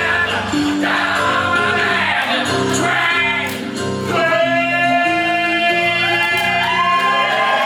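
Music with singing: a song with backing instruments and voices, with long held sung notes from about four seconds in.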